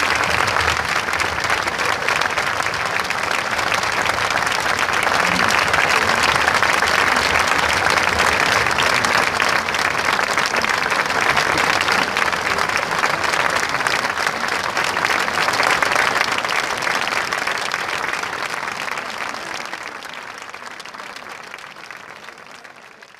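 Large audience applauding, an even, steady clapping that fades out over the last few seconds.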